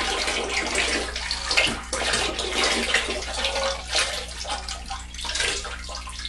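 Liquid pottery glaze poured from a measuring cup over a platter, running and splashing without a break.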